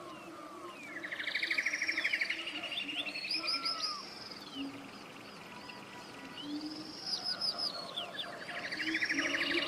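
Songbird singing in the forest: two long, varied phrases about six seconds apart, each with a fast buzzy trill and high arching whistled notes. Fainter low hooting notes run underneath.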